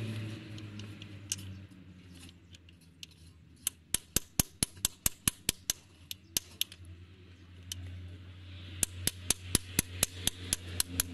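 Quick, sharp metal-on-metal hammer taps, about four a second, on a tool held against the freeze plug in a Mercedes 190 D engine block. They come in two runs of a few seconds each, over a low steady hum.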